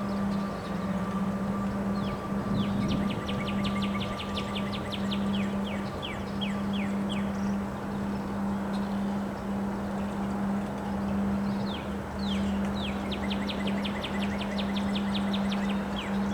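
Wind noise with a steady low hum underneath, and a small bird singing a fast trill of evenly spaced chirps twice, each run lasting a few seconds.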